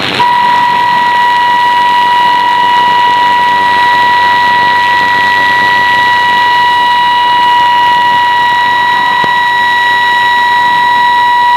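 Steady single-pitch test tone from a shortwave test transmission, announced at −8 dBFS, with fainter higher overtones above it, heard through the radio's steady static hiss. It cuts off sharply at the end.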